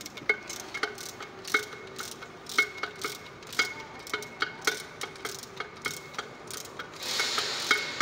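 Sharp metallic clinks, each with a short ring, about two a second at an uneven pace: metal on metal as a cast cover plate is worked onto an open forklift gearbox housing. A brief scraping hiss about seven seconds in.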